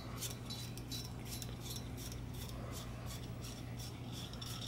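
Faint metallic ticks and light scraping of a steel bicycle shift cable being fed by hand into its cable housing, a few small ticks a second.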